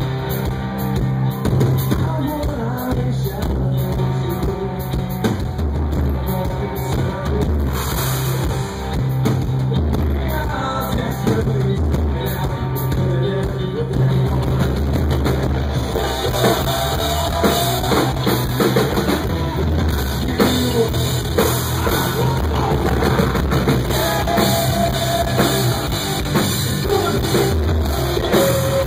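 Live rock band playing: electric guitar, bass guitar and drum kit with a steady beat, and singing.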